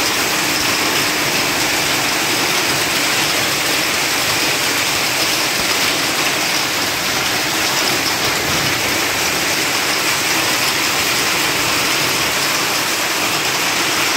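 Heavy hail and rain pelting down on a street, a steady dense hiss of ice pellets striking the road.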